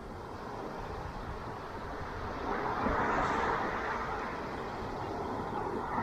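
Ocean surf washing on a beach, a steady rush of water that swells louder about halfway through as a wave breaks.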